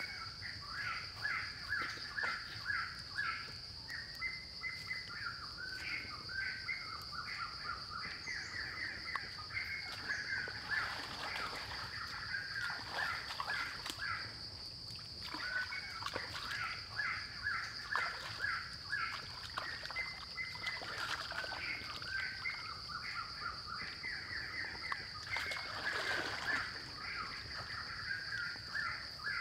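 Forest streamside ambience: a steady high-pitched insect drone, birds calling in rapid repeated runs, and water splashing at times as someone wades and grabs in the shallow stream.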